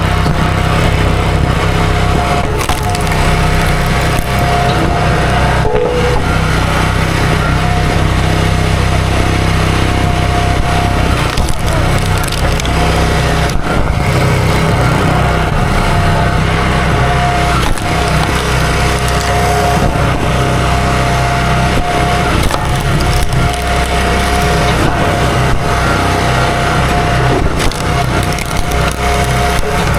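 Small gasoline engine running steadily at a constant speed while wood is worked, with cracking and splintering of wood.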